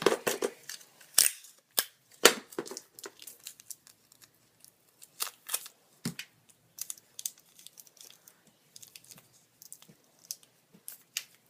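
Sticky tape being pulled, torn and pressed on by hand: irregular sharp clicks and crackles, loudest in the first few seconds.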